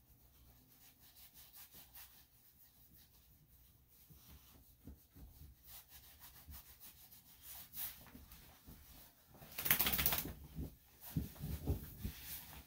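Soft rustling and rubbing as a small dog is handled on the grooming table. About ten seconds in comes a brief, loud flapping burst, then a few soft thumps.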